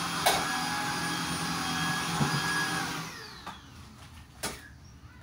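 Handheld vacuum cleaner running steadily, then switched off about three seconds in, its motor whine falling away as it spins down. A knock comes near the end.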